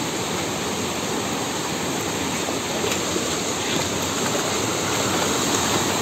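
Steady rush of water from a waterfall and the stream it feeds.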